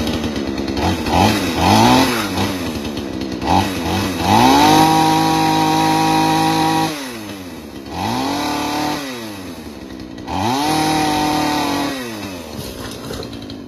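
Two-stroke chainsaw blipped several times, then held at high revs for about two seconds while cutting through a tree limb, dropping to idle between two further bursts of throttle.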